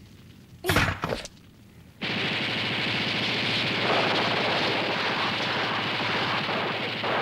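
Rapid automatic gunfire: a couple of sharp shots about a second in, then a sustained dense rattle of fire from about two seconds in.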